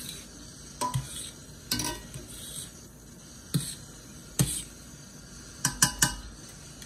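A metal pasta server stirring soup in a stainless steel pot, clinking against the pot's side and rim about seven times, with three quick clinks close together near the end.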